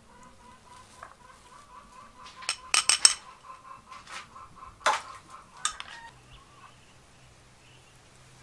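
Metal spoons clinking against a small ceramic bowl while a chili dipping sauce is stirred: a quick run of sharp clinks about two and a half seconds in, then single clinks near five seconds and just before six. Chickens cluck in the background.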